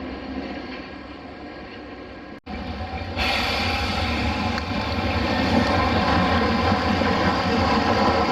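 Train running on the rails with a steady rumble. The sound drops out for a moment about two and a half seconds in, then comes back louder and brighter.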